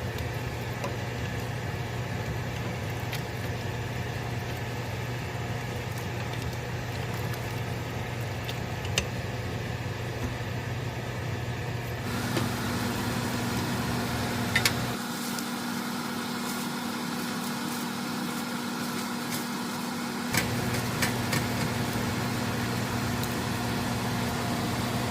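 A steady low mechanical hum, with a few light clicks and knocks. About halfway through the hum changes to a different, higher steady tone.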